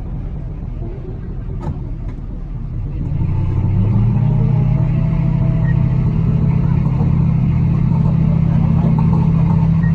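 Heavy diesel engine of earth-moving equipment running; about three seconds in it revs up, rising slightly in pitch and getting louder, then holds a steady note under load.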